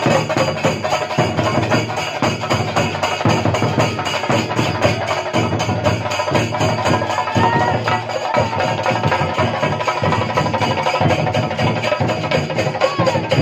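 A chenda drum ensemble playing a fast, unbroken rhythm with sticks, with brass hand cymbals (ilathalam) clashing and ringing over the drumming.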